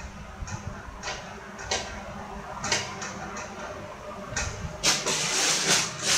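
Handling noise: a series of short rustling swishes, then a louder continuous rustling and scraping near the end, as objects are moved about and picked up.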